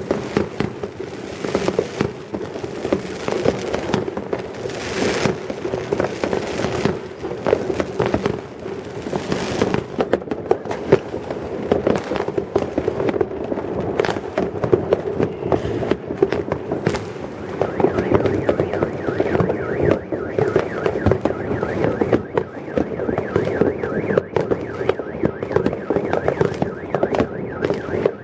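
Fireworks: a dense, continuous barrage of bangs and crackles from many shells going off. Two stretches of hiss come through, about five and nine seconds in.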